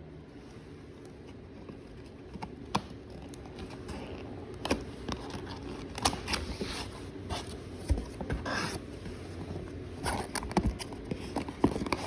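Box and packaging being handled and opened: irregular taps and clicks with short scraping rustles, sparse at first and busier from about four seconds in.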